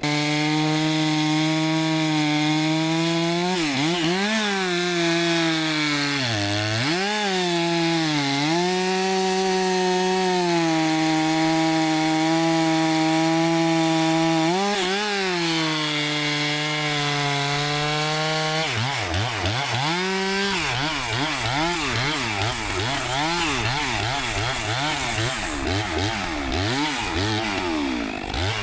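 Two-stroke chainsaw cutting through a log, running steadily under load with a few brief dips in engine speed. About two-thirds of the way through its pitch starts rising and falling rapidly and repeatedly as the cut goes on.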